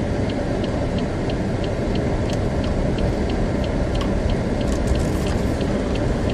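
Steady low rumble of a Pontiac Grand Prix with a supercharged 3.8-litre V6, heard inside the cabin as it drives slowly through deep slush and snow, with a light ticking about three times a second.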